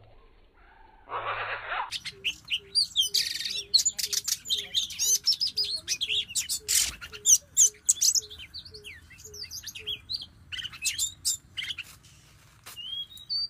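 Oriental magpie-robin song: a fast, varied run of whistles, chirps and trills. Underneath it, a short low note repeats about twice a second for most of the song.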